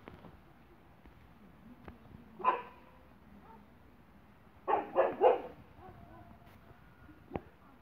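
Dog barking in play: one bark, then about two seconds later three quick barks in a row.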